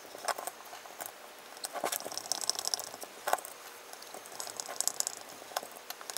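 Hands handling the antenna's metal housing: scattered small clicks and knocks, with stretches of scratchy rubbing about two seconds in and again near five seconds.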